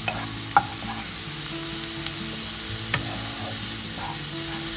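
Sliced onions and ginger-garlic paste sizzling in hot oil in a nonstick frying pan as a spatula stirs them, with a few sharp knocks of the spatula against the pan, the loudest about half a second in.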